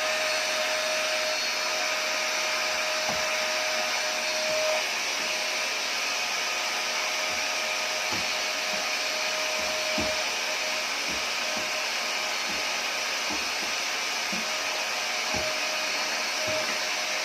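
Olsenmark vacuum cleaner running steadily: a constant rushing motor noise with a steady whine, and a few faint knocks now and then.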